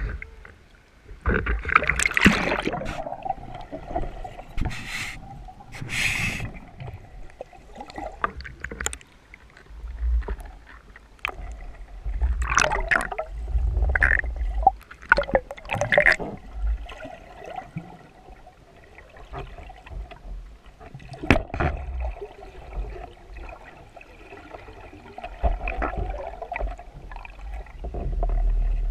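Water gurgling and bubbling in irregular surges as a freediver swims underwater, with scattered sharp clicks and knocks.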